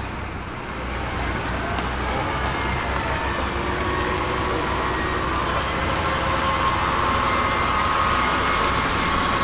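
Off-road 4x4's engine running while its winch pulls, with a wavering whine that comes in about two seconds in and grows louder.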